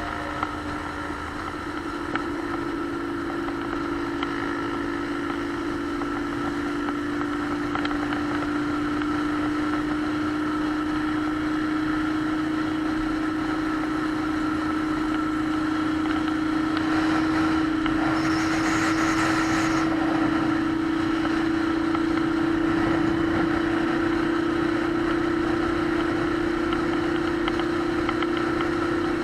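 Motorcycle engine running steadily on the move, its hum slowly rising in pitch, with wind rushing over the microphone and a short burst of extra hiss about two-thirds of the way through.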